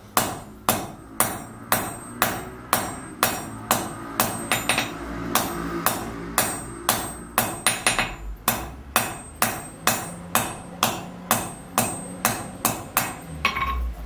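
Hand hammer striking a red-hot bar on a blacksmith's anvil at about two blows a second, each a sharp ringing clang, some blows landing in quick pairs later on. This is hand forging: drawing a tapered point on the end of a bar padlock's bar so that it will lead through the eyelets.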